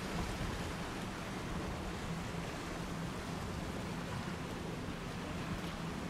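Sea washing steadily against a rocky shore, mixed with wind, under a faint steady low hum of a distant motorboat engine.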